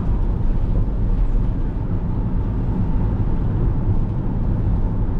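Steady low rumble of a car being driven, with engine and tyre noise heard from inside the cabin.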